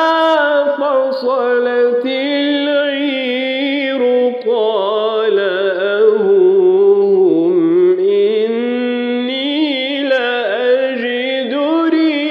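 A man reciting the Quran in the melodic, drawn-out tajweed style, holding one long ornamented phrase. His voice wavers through melismatic turns, sinks lower around the middle and rises again toward the end.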